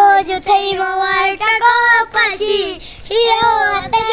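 Child's voice singing a song unaccompanied, in long held notes that bend in pitch, with short breaks between phrases.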